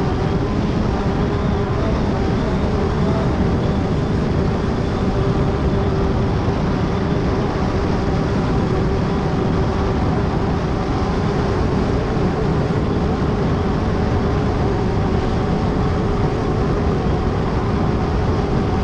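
Class 10 off-road race car running flat out at a steady engine pitch, over heavy rumbling noise from the car at speed.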